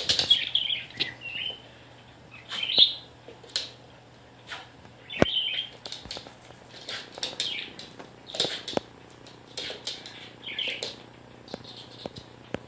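Budgerigar (pet parakeet) chirping in short calls, about one a second, among scattered sharp clicks and taps.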